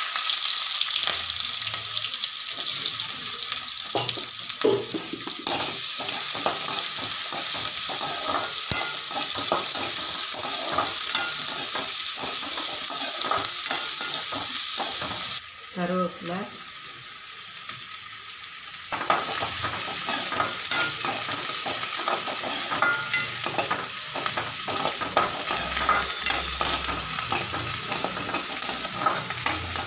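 Chopped onion and green chillies sizzling as they fry in hot oil in a metal kadai, with a spatula stirring and scraping against the pan in many short clicks. The sizzle eases for a few seconds past the middle.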